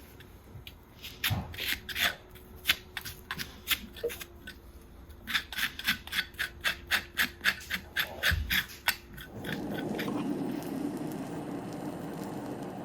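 Farrier's rasp filing a horse's hoof in short quick strokes, about three a second. From about nine seconds in it changes to a steadier, lower rubbing.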